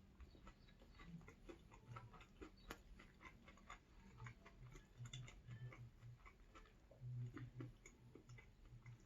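Faint close-up chewing of a chicken burger sandwich: a run of small wet mouth clicks with soft low thuds of the jaw working.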